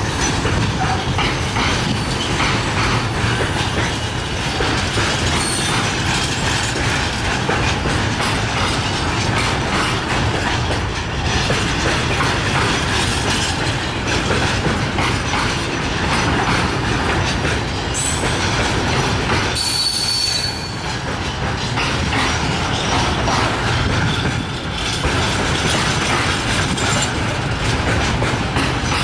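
Intermodal freight wagons, pocket wagons loaded with semi-trailers, rolling past close by with a steady noise of wheels on rail. A brief high wheel squeal comes about twenty seconds in.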